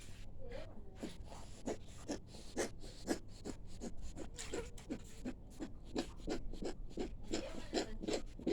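A pet snoring with fast, snuffly breaths, about two or three short noisy breaths a second, some with a faint rasp.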